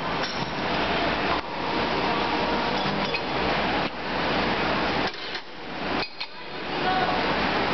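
Vertical injection moulding machine running with a loud, steady mechanical noise that dips briefly several times, over metal clinks and clatter as cables with metal fittings are handled at the mould.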